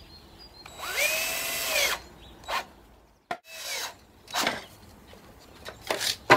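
Cordless drill-driver driving a wood screw into a wooden shelf leg: the motor whines up, runs for about a second and winds down as the screw seats, with a shorter second run a moment later. A few short knocks of handling follow near the end.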